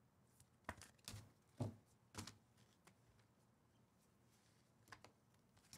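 Faint clicks and slides of glossy chromium trading cards being flipped through a handheld stack, a handful of short snaps in the first two seconds or so and one more near the end.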